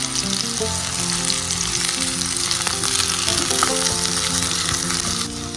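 Food sizzling and crackling in hot cooking oil in a pan, a dense steady sizzle that eases near the end, with background music playing.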